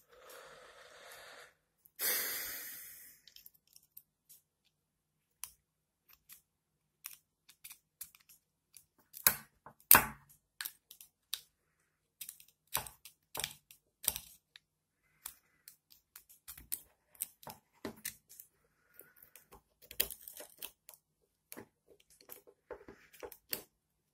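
Small clicks and taps from a Shimano Zee shifter's metal and plastic parts and a screwdriver as its spring is pulled into tension by hand. The clicks are scattered and irregular, the loudest about ten seconds in, and two short hissing rustles come near the start.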